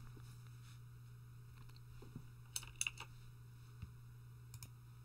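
Quiet room tone with a steady low hum, broken by a few faint, sharp clicks about two and a half to three seconds in and again near the end.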